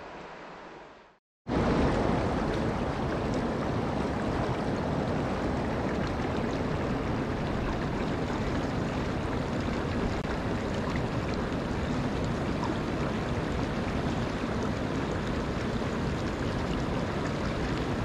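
Shallow mountain stream rippling over stones close by: a steady, dense rushing of water. A quieter river sound fades out in the first second, and after a short silence the stream starts abruptly.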